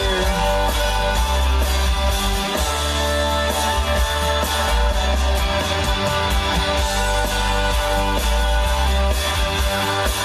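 A song with guitar playing over FM radio through a car stereo.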